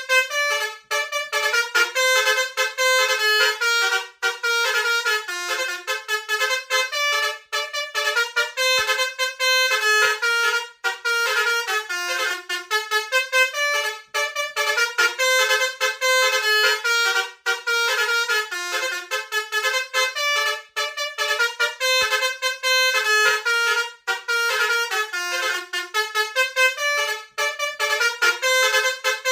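Indonesian "telolet" bus horn, a set of multi-tone musical horns playing a fast tune of short notes that jump between pitches, going on and on with only brief breaks.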